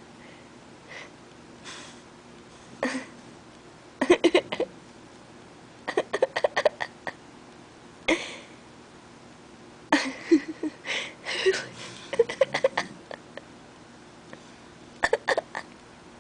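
A sleeping puggle snoring and snorting in short, irregular, rattling bursts about every two seconds.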